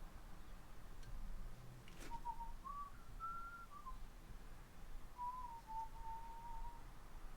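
A person whistling a tune in short phrases of held notes with little glides between them, with one sharp click about two seconds in.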